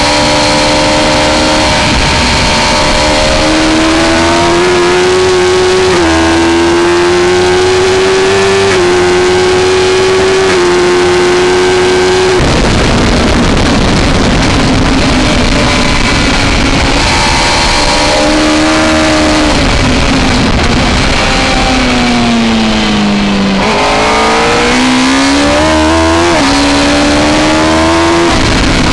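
Suzuki GSX-R1000 K3 inline-four engine at racing speed, heard from the bike itself with wind rushing over the camera. It pulls up through the gears in stepped rises of pitch, shuts off about halfway and drops in pitch as it slows near the end, then accelerates hard again through several quick upshifts.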